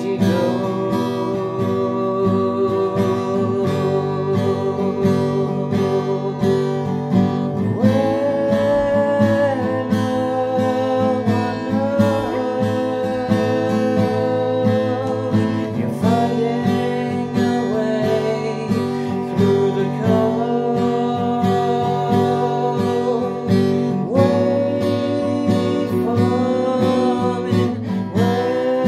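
A man singing while strumming an acoustic guitar; long held sung notes come and go over steady strummed chords.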